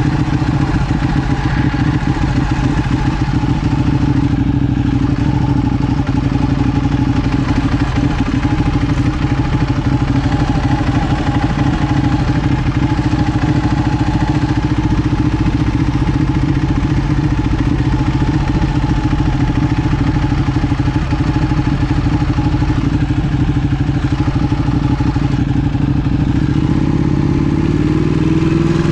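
Ducati Panigale R's V-twin engine through an Akrapovic titanium full exhaust, heard from the rider's seat, running at steady low revs while the bike rolls slowly. Near the end the revs start to climb as it accelerates.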